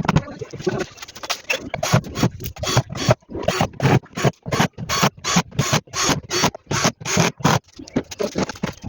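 Hand work on washing-machine parts during reassembly: a quick, irregular run of sharp knocks and scrapes, several a second, that eases off near the end.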